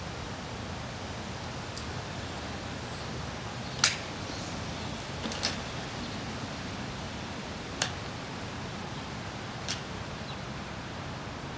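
Brompton folding bicycle being unfolded and set up: a handful of sharp metallic clicks and snaps, a few seconds apart, as its hinges and clamps lock into place, over a steady background hiss.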